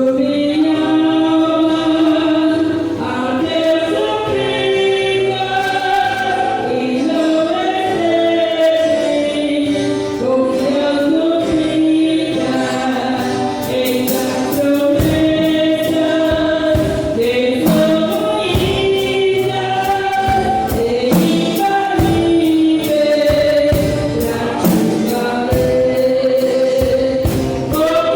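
Gospel song with a choir singing a sustained melody; drum and cymbal hits come in about halfway through, with the snare drum sitting low in the mix.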